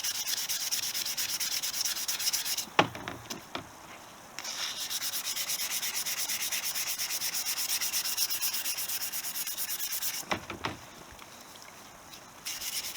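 400-grit wet-and-dry paper rubbed rapidly back and forth along a Honda CB125S fork tube, wet-sanded with soapy water. The strokes stop twice for a couple of seconds, and a sharp knock, the loudest sound, comes as the first pause begins.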